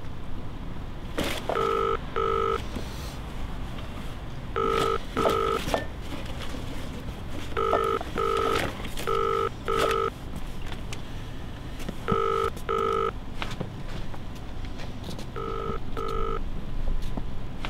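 Mobile phone ringing for an incoming call: a repeating ringtone of paired short electronic beeps, each pair about a second long and recurring every few seconds. A few sharp clicks sound near some of the rings, over a steady background hiss.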